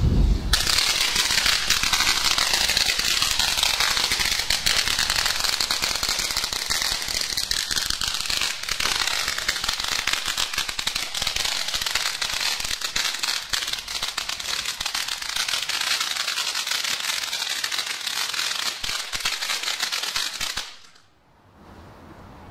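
Ground firework fountain burning: a steady hiss thick with fast crackling. It starts about half a second in and stops abruptly near the end as the fountain burns out.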